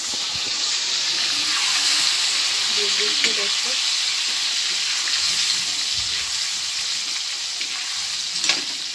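Boiled potato pieces frying in hot oil in a kadhai: a steady sizzle, with a metal ladle stirring and scraping through them and a sharp click of the ladle against the pan near the end.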